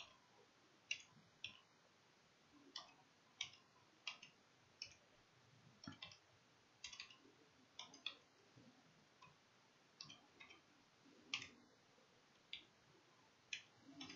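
Faint keystrokes on a computer keyboard as a product key is typed in by hand: single sharp clicks, unevenly spaced, about one or two a second.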